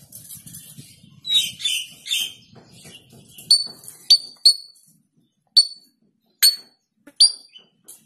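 African grey parrot making a series of about six sharp clicks, each with a brief high ring, in the second half, after a few softer, noisier sounds.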